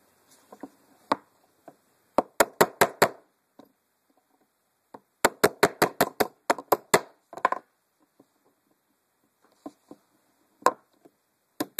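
Sharp taps of a hammer on a 1/16-inch pin punch, driving the small cylinder-retaining pin out of an RG-10 revolver's frame. A quick run of about six taps, then a longer run of about ten, then a few scattered taps.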